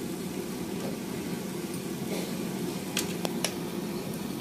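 Steady hiss of a pressurised kerosene stove burning under the pan, with a few light clinks of a steel ladle against a steel strainer about three seconds in.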